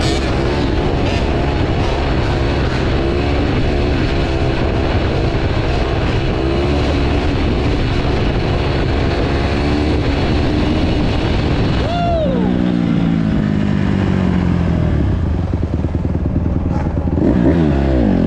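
Several motorcycle engines running and revving at once, their pitch rising and falling, with one sharp rev about twelve seconds in and another near the end.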